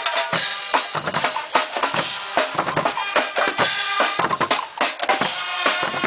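Marching percussion band playing: large bass drums and snare drums beating a steady parade rhythm, with cymbals crashing and ringing over the beat.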